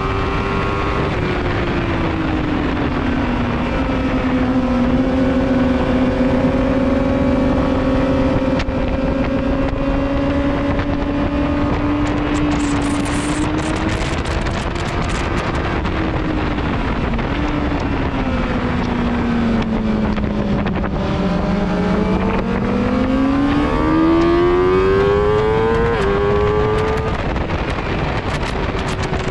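Motorcycle engine at track speed, heard from the bike itself over steady wind rush. The engine note holds steady through a long bend, sinks lower about two-thirds of the way through, then climbs quickly as the bike accelerates out onto the straight.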